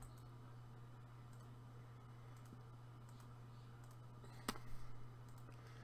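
A steady low hum under near-quiet, with a few faint clicks, and about four and a half seconds in a short cluster of louder clicks and knocks.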